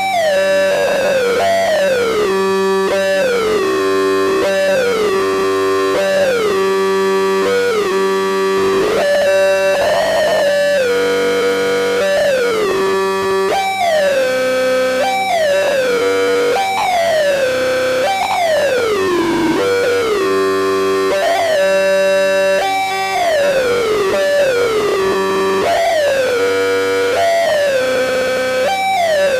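Electronic synthesizer tones that hold a note and then slide down in pitch, over and over every second or two, above a steady low drone.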